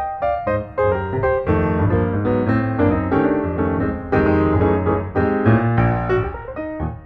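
Background piano music, a quick run of notes over a steady bass line.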